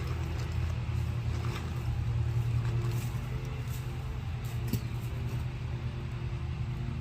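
A steady low motor hum with a few faint knocks and rustles.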